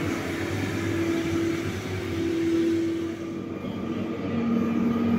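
Rail maintenance-of-way track machine running along the track and moving away, its engine a steady drone that fades about three seconds in. A lower steady drone comes in about a second later.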